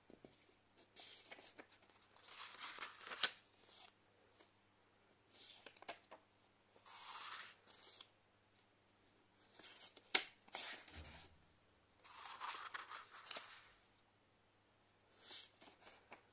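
Sheets of printed paper rustling and crinkling as pages are turned by hand, in several short bursts every couple of seconds with a few sharp crackles.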